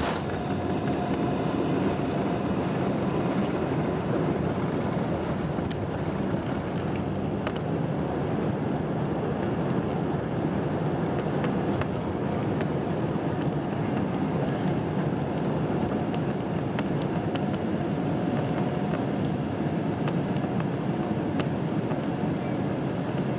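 Cabin noise of a Boeing 747-8i taking off, from the end of the takeoff roll into the initial climb: its GEnx-2B engines at takeoff thrust and the rushing air make a loud, steady noise.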